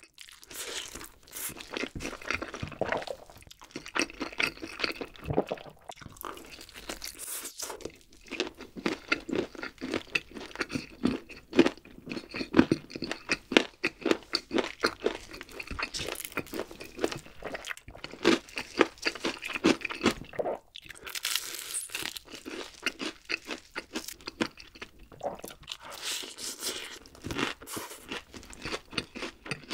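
Close-miked eating sounds of a person biting and chewing sauced chicken, a dense run of crunchy crackles and chewing with a few brief pauses.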